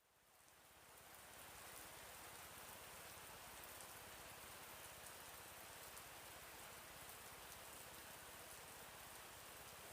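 Faint, steady hiss of noise like falling rain, fading in about a second in.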